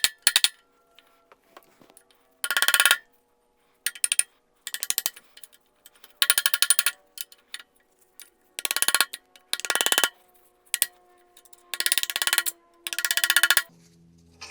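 Hammer blows on a seized aluminium part of a Ford 300 inline-six, stuck fast by corrosion. The blows come in about eight short, rapid volleys, and the metal rings between them.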